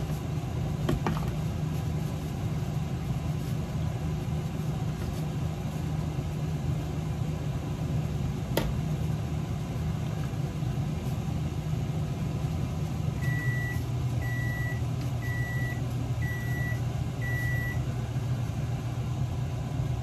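A steady kitchen-appliance hum. About two-thirds of the way through, the hum drops slightly and five short electronic beeps sound, evenly spaced about a second apart, like an appliance signalling that its cycle has finished.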